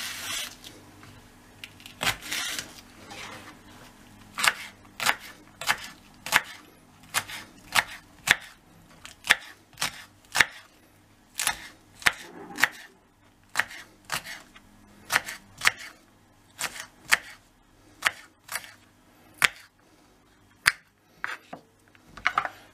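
Kitchen knife chopping long green peppers on a wooden cutting board: sharp knocks of the blade on the board, about two a second, in a slightly uneven rhythm.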